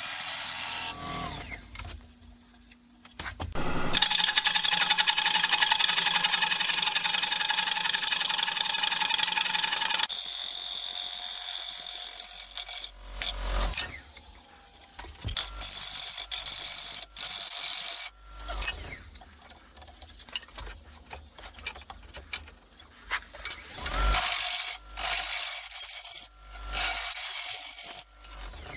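A bowl gouge cutting the inside of a spinning bowl on a wood lathe, through wood and epoxy resin fill, with a steady hiss of cutting. The longest pass runs from about four to ten seconds in, after a short lull. Shorter passes start and stop after it.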